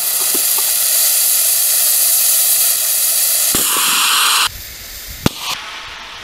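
Tribrid rocket motor firing: a loud, steady hiss of nitrous oxide rushing through the motor, which drops abruptly to a quieter hiss about four and a half seconds in, with one sharp crack shortly after. The nitrous flow is too cold to light, so the motor is not yet burning properly and runs with almost no chamber pressure.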